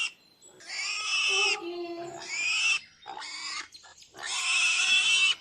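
An animal calling four times in a row, each call lasting about half a second to a second and ending with a slight drop in pitch.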